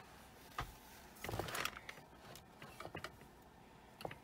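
Faint, scattered small clicks and light rustles of jewelry being handled, bunched a little over a second in, with single ticks now and then.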